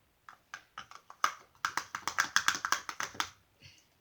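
Freshly activated slime being kneaded and mixed, a quick run of sticky, wet clicks and squelches that grows dense in the middle and then stops; the slime is still setting up and not yet fully done.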